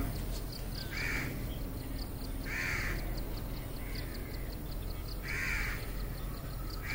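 A crow cawing four times, short harsh calls spaced one to three seconds apart.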